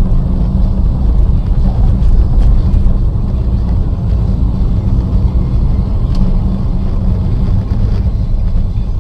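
Steady low rumble of a car driving, engine and road noise picked up by a dash camera.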